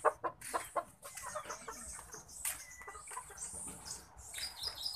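Chickens clucking with a flutter of wings, and quick steps of plastic slides on gritty ground making several sharp clicks in the first second.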